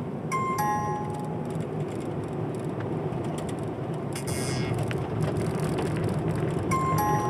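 Steady engine and road noise inside the cabin of a moving small car with a manual gearbox. A two-note descending electronic chime sounds twice, near the start and near the end, and a short hiss comes about four seconds in.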